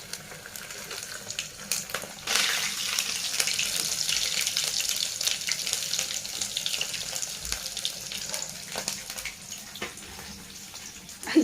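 Momos deep-frying in hot oil in a kadai: a loud sizzle with crackling that starts suddenly about two seconds in and eases off near the end.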